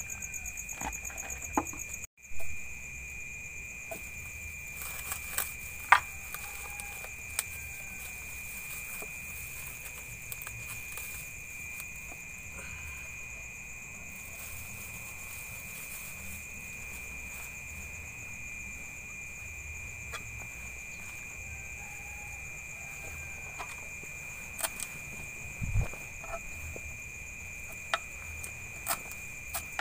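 Night insects, likely crickets, chirping in a steady high drone. Scattered clicks, scrapes and a few knocks of a knife and grater on a wooden stool sound over it.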